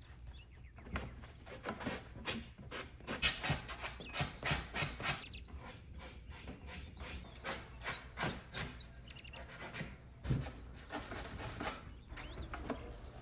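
Hand sanding of particle-board drawer corners: sandpaper rubbed back and forth in quick, irregular strokes, a few per second.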